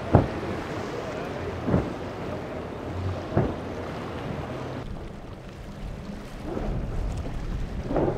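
A deck boat's single Yamaha outboard running through choppy inlet waves, with wind buffeting the microphone and a few short thumps as the hull slams into the chop in the first half. The noise dips for a moment, then swells again near the end.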